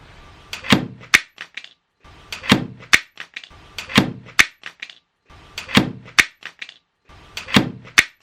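Sharp knocks in pairs, two hard hits close together, repeated five times about every second and a half with dead silence between the pairs.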